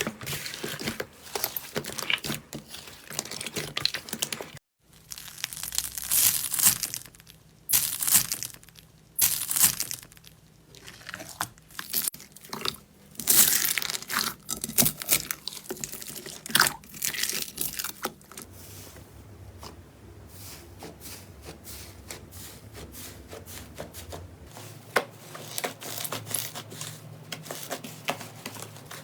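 Slime being squeezed, pressed and pulled apart by hand, giving crisp crackling, crunching and tearing sounds in quick irregular bursts, with a brief gap about five seconds in and softer, steadier crackling toward the end.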